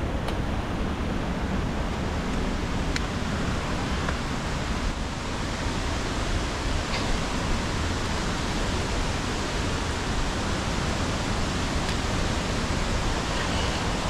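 Steady rush of water at a cascading stream waterfall, an even roar with no change, with a few faint clicks over it.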